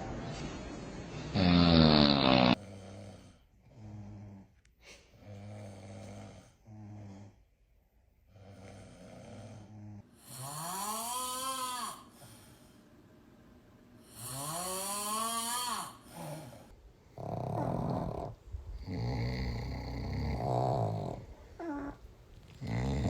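Snoring: a series of snores about a second apart, then two long snores that rise and fall in pitch, then more snores near the end.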